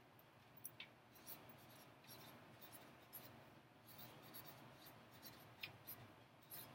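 Marker pen writing on flip-chart paper: faint strokes and small scratches of the felt tip.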